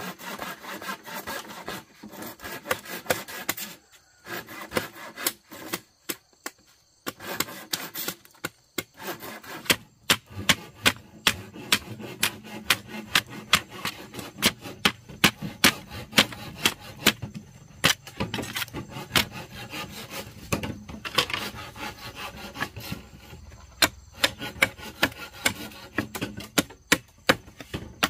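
Hand tools working wood: rough scraping, sawing-like strokes at first, then from about a third of the way in a long run of sharp knocks and taps, several a second.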